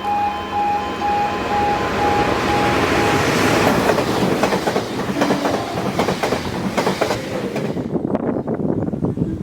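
UK level crossing audible warning alarm sounding in even, repeated beeps. About three to four seconds in it is drowned by a passenger train passing at speed, its wheels clattering over the rail joints. The rushing fades near the end, leaving a few wheel clicks.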